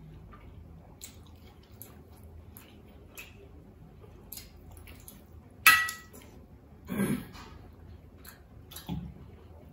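Close-up eating sounds of people eating curry and rice by hand: soft chewing, squishing and lip smacks. A little past halfway comes one sharp clink that rings briefly, the loudest sound, then two duller knocks about a second and two seconds later.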